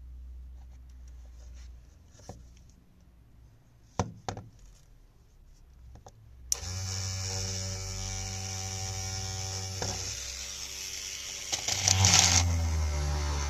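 A small electric motor of a homemade cordless drill switches on about halfway through with a click and runs at a steady whine, getting a little louder near the end; a couple of sharp clicks come before it.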